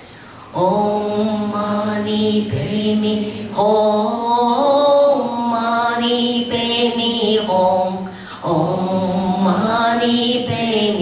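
A woman singing a slow, chant-like melody into a microphone, in phrases of long held notes with a slight waver.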